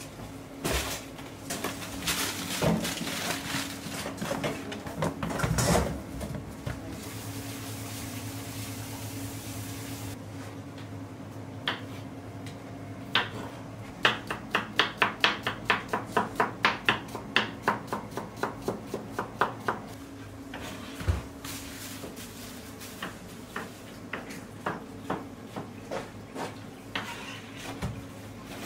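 Kitchen knife cutting vegetables on a plastic cutting board: a fast, even run of chops, about three to four a second, as a cucumber is sliced with a serrated knife, then slower single cuts through tomatoes. Scattered knocks of kitchen work come before, and a steady low hum runs underneath.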